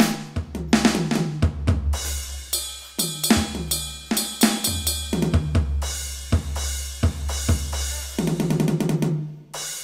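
Drum kit playing a beat of kick, snare and cymbal hits over deep sustained bass notes, ending in a fast roll of pitched drum strokes and a cymbal crash that rings out and fades.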